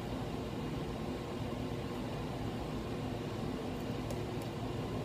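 Steady low room hum, with a few faint short clicks about four seconds in.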